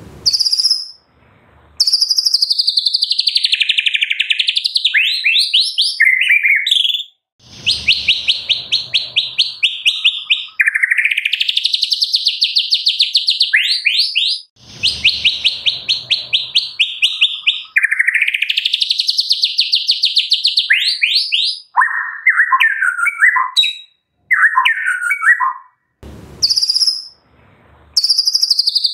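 White-rumped shama singing, with mimicked cililin and canary song worked into its phrases. It sings long phrases of fast repeated notes that sweep up and down, with short pauses between them, and about three-quarters of the way through there is a lower, choppier stretch of chatter.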